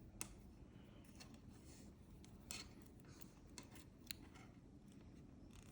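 Craft wire being handled and shaped by hand: a few faint, sharp clicks and soft scrapes over near silence.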